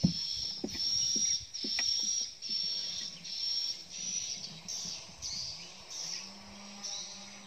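Insects chirping outdoors in a steady high-pitched rhythm, about two pulses a second. A few light knocks sound in the first two seconds, and a low steady hum comes in about six seconds in.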